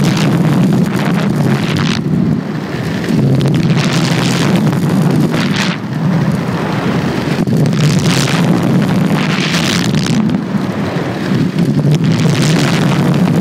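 Wind buffeting the microphone and inline skate wheels rolling fast on rough asphalt during a downhill run: a steady low rumble with swells of rushing hiss every couple of seconds.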